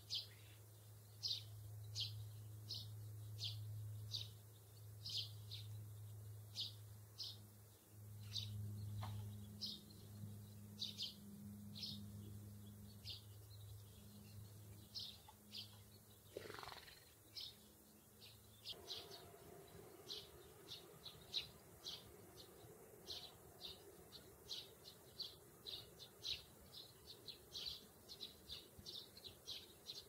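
A small bird chirping over and over: short, high chirps about one a second, coming faster, about two a second, in the second half. A low steady hum runs underneath until a little past halfway, where it stops just after a quick falling sweep.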